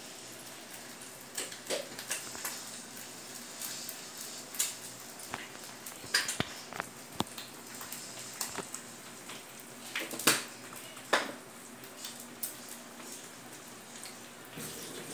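Quiet room tone with scattered light clicks and taps, a few short knocks every second or two, the loudest about ten seconds in.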